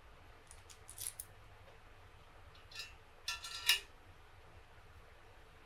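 Small steel tool parts, a threaded stud, spacers and a nut, clinking together as they are handled and fitted through a spherical bearing. A few light metallic clicks, the loudest cluster about three and a half seconds in with a brief ring.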